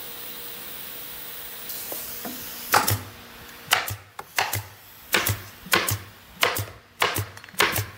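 Pneumatic staple gun firing repeatedly, shooting staples through fibre lining into the inside of a plywood subwoofer cabinet: about a dozen sharp shots, each with a low thud, starting about three seconds in, roughly one or two a second.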